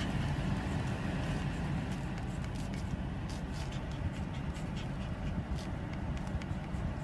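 Steady low rumble of car cabin noise, with scattered faint clicks over it.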